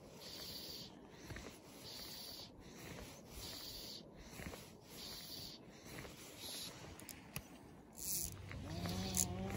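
Fly line being stripped in by hand through the rod rings and fingers: a soft scraping hiss about once a second, each pull followed by a brief pause. Near the end there is a short wavering pitched sound.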